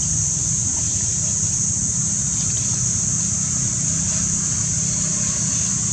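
Steady outdoor background noise: a low rumble with a constant high-pitched hiss, and no distinct event.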